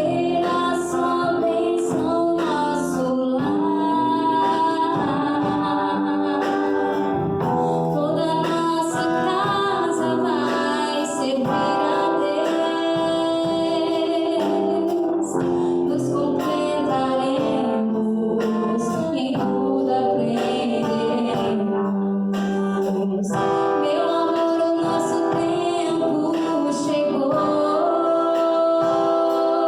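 A song with singing over instrumental accompaniment, played steadily throughout.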